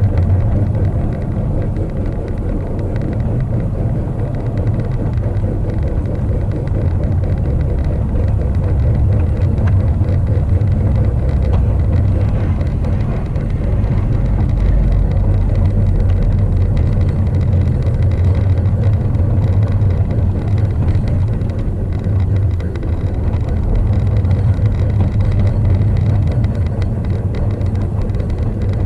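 Steady low rumble of a G-scale model freight car's wheels rolling along the track, picked up by a camera riding on the car.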